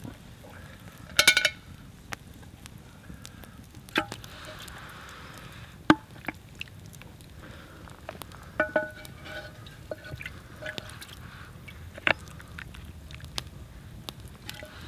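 A wooden spoon knocking and scraping in an Afghan pressure cooker's cast-aluminium pot while food is served, with several ringing metal clinks and the sauce sloshing. The loudest is a short clattering clink about a second in.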